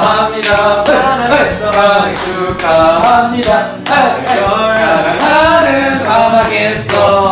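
Upbeat music: a male singing voice over a steady beat.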